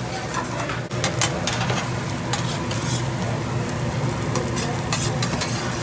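Fried rice sizzling on a teppanyaki steel griddle, with a metal spatula scraping and tapping against the hot plate in many short, sharp clicks.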